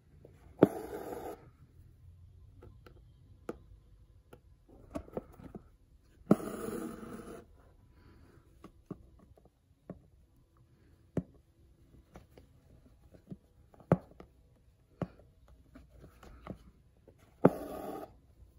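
Hand embroidery in a hoop on a cap: a needle clicks through the stiff fabric now and then. Three times, near the start, about six seconds in and near the end, a sharp pop is followed by about a second of rasping as the two-strand embroidery floss is drawn through to finish a satin stitch.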